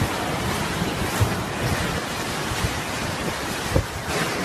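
Strong whirlwind gusts rushing and buffeting the microphone in a steady noise, with a dull thump just after a second in and another near the end.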